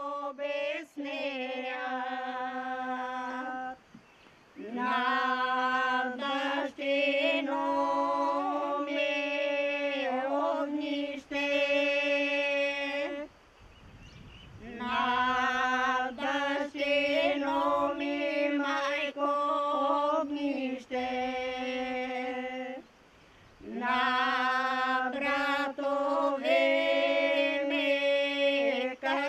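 A group of women singing a traditional Bulgarian folk song unaccompanied: a steady low held note under a moving upper melody, in long phrases with short breaks for breath.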